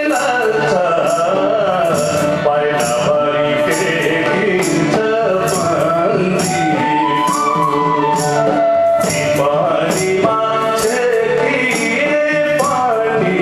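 Nepali folk song: a man sings into a microphone over harmonium and bamboo flute (bansuri). A small hand percussion strikes a steady beat about twice a second.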